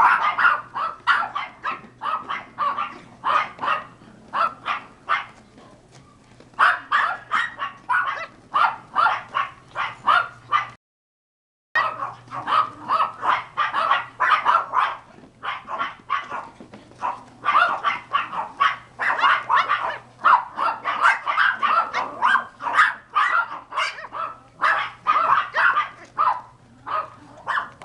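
Pomeranian puppies yapping and barking in quick runs of short, high barks, several a second, with a break of about a second near the middle.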